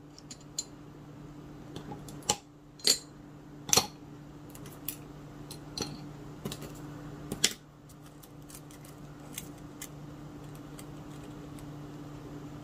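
Scattered light clicks and taps of small nail-art tools and bottles being handled on a tabletop, about six in the first eight seconds, over a steady low hum.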